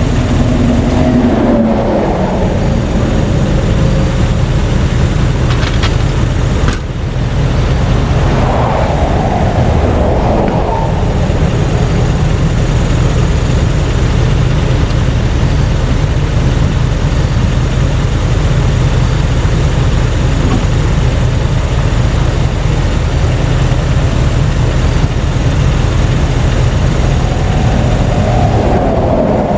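Steady, loud road-vehicle noise with a deep rumble, dipping briefly about a quarter of the way through.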